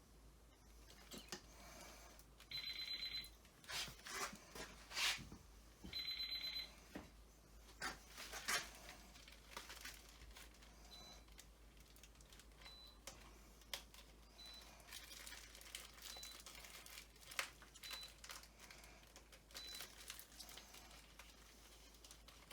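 Plastic bag crinkling and rustling as it is handled, with two short bursts of electronic beeping a few seconds apart early on, then a faint single beep repeating about every two seconds.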